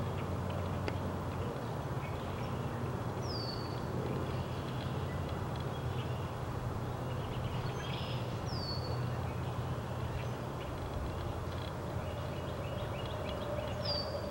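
Outdoor ambience of a steady low rumble, with a small bird giving a short, high call that slides down in pitch, three times about five seconds apart.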